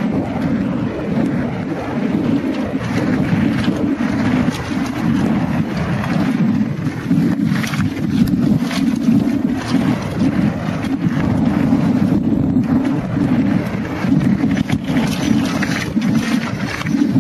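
Heavy wind buffeting the microphone of a camera on a downhill mountain bike at speed, a steady low rushing, with frequent clattering knocks from the bike running over rough trail.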